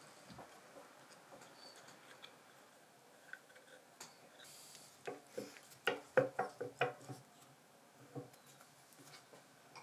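Small metal clicks and clinks as a hex key and the round cap on a milling machine head are handled. Faint scattered ticks come first, then a quick run of about eight clicks a little past halfway.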